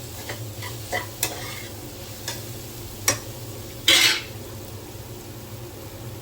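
Ginger-garlic paste and onions sizzling in hot oil in a pressure pan while a spoon stirs them, tapping and scraping against the pan several times, with one louder scrape about four seconds in.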